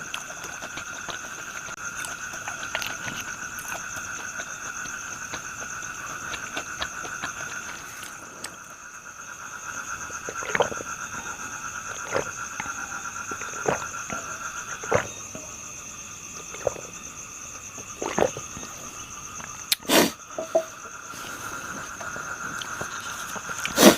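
Someone eating crisp fried pork intestines, with sharp crunches or clicks every second or two, over a steady high chirring of insects.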